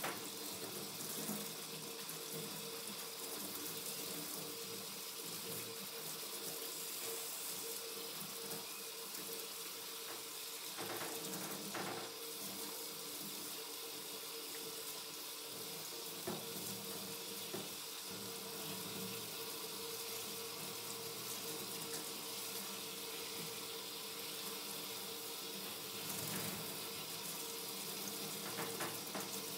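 Water from a hand-held hose sprayer running steadily over a dog's wet coat and splashing into a stainless steel sink, with a steady hum underneath.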